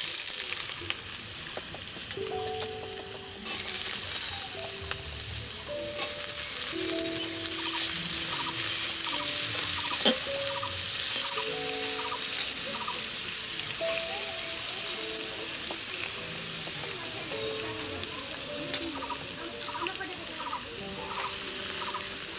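Julienned potato sizzling as it deep-fries in hot oil in a wok, stirred now and then with a metal spatula. The sizzle starts suddenly as the potato goes into the oil and gets louder a few seconds later.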